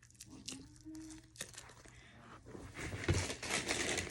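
Fidget toys being rummaged through and handled: a rustling, crinkling noise that grows louder from about two and a half seconds in.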